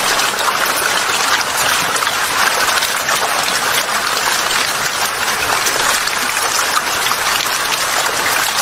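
A dense crowd of farmed eels writhing and splashing in shallow water around blocks of feed paste at feeding time, making a steady, crackling patter of many small wet splashes.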